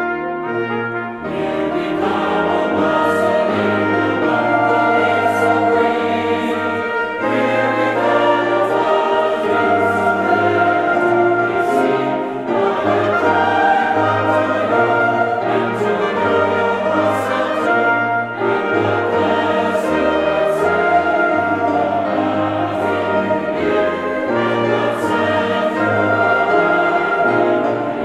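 Large mixed choir singing a Christmas piece with a brass ensemble of trumpets and trombones, the music running on without a break.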